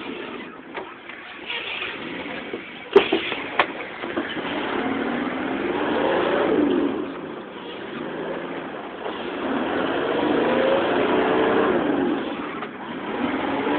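4x4's engine revving up and falling back twice as the truck, stuck in deep water, tries to reverse out. Two sharp knocks come about three seconds in.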